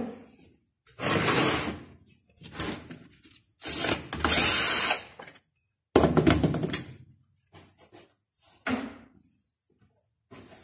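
Handheld power tool run in short bursts, about five times, each lasting roughly a second, while working on a brush cutter engine.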